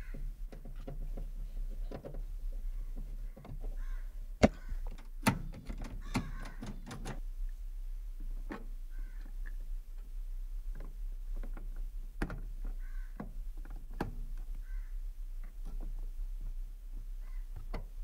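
Scattered clicks and knocks of plastic and metal parts as a car's outer door handle is slid back into the door and screwed in; the sharpest clicks come about four and five seconds in. A bird calls now and then in the background.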